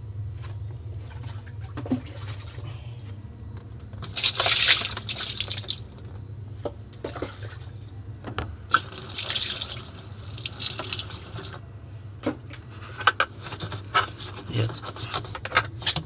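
A brush scrubbing thick, wet grime off the bottom of an LG top-loading washing machine's tub. There are two long bouts of wet, swishing scrubbing, about four and nine seconds in, then short strokes with clicks near the end, over a steady low hum.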